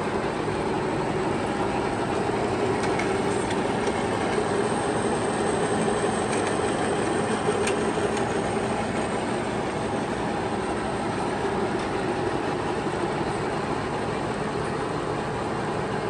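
American Pacemaker engine lathe running under power, a four-jaw chuck spinning heavy-wall steel tubing while a long-reach boring bar cuts a 2-inch clearance bore. The noise is steady, with a few faint ticks.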